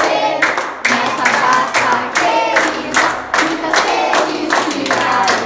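Group of children singing a birthday song together while clapping along in a steady beat, about two claps a second.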